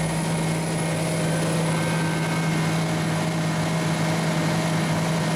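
Komatsu PC410LC-5 excavator's diesel engine and hydraulic pumps running at a steady high idle, with the bucket circuit held over relief so the rear pump works at its relief pressure. A constant, even drone with no change in pitch.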